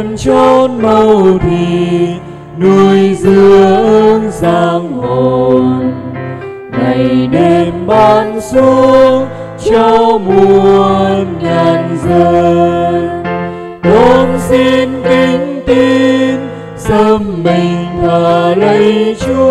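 A Vietnamese Catholic hymn sung with instrumental accompaniment, one melodic note after another.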